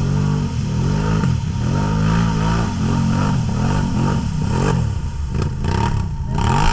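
Can-Am Outlander 1000 ATV's V-twin engine revved hard up and down again and again, about once or twice a second, as its tyres churn through deep mud. Splashing and knocking of mud and tyres come through in the second half as it climbs out.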